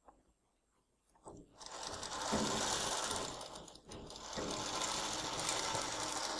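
Industrial sewing machine stitching fabric at speed. It starts about a second and a half in, stops briefly a little past the middle, then runs again until the end.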